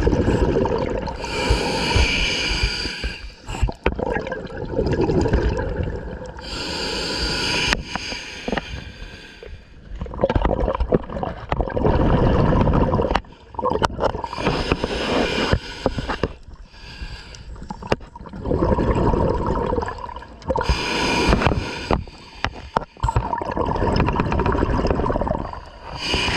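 A scuba diver breathing underwater through an open-circuit regulator: hissing inhalations alternate with bubbling exhalations, several breath cycles a few seconds apart.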